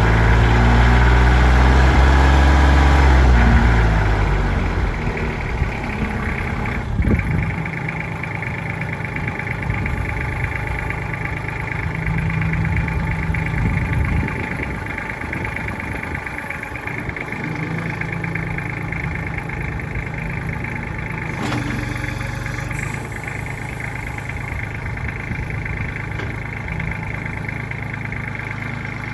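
Kubota L3200D compact tractor's three-cylinder diesel engine running steadily while the front-end loader's bucket is raised and lowered. The engine is louder for the first few seconds and swells again briefly about halfway through, and there is a single clunk about a quarter of the way in.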